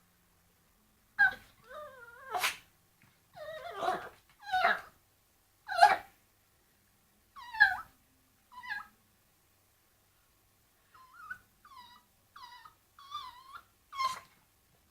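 A dog barking at a bone in short, high yelps and whines. About a dozen sharp calls come at irregular intervals, break off for a couple of seconds in the middle, then return as a run of softer whines ending in one louder yelp.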